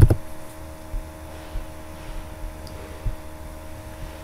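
One or two last keyboard keystrokes at the very start, then a steady low electrical hum with a few faint steady tones: computer and room background noise.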